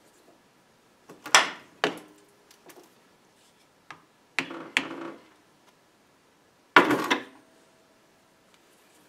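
A soft-faced mallet tapping the metal lathe's compound rest, nudging its angle to set the crown taper for a pulley. The sharp knocks come in three groups of two or three, each with a short metallic ring.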